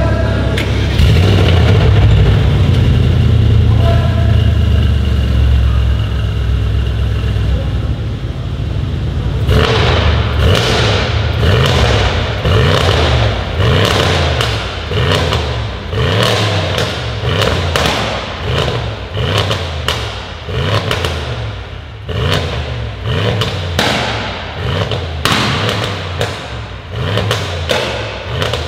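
Mercedes-AMG E63 S twin-turbo V8 with a decat exhaust, revving while stationary in a garage. A steady deep drone holds for about eight seconds. Then come repeated quick rev blips, each followed by a run of sharp pops and bangs from the exhaust.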